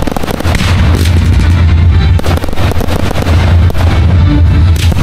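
Fireworks bursting in rapid succession, many bangs and booms overlapping over a continuous low rumble, with music underneath.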